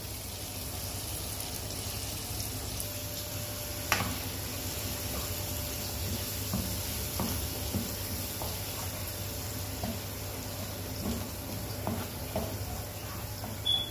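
Masala paste sizzling and frying in hot oil with curry leaves, stirred and scraped around a frying pan with a wooden spatula, with scattered light knocks of the spatula on the pan. A sharp click about four seconds in.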